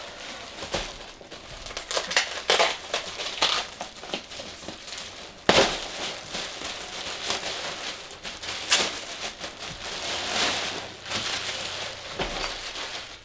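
Packaging crinkling and rustling in irregular bursts as items are unpacked by hand, with one sharp crackle about five and a half seconds in.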